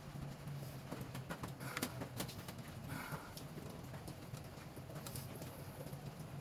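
Scattered light clicks and taps from handling the fan cord's wire and a cutting tool while stripping its insulation, several close together about two seconds in and one more near the end, over a low steady hum.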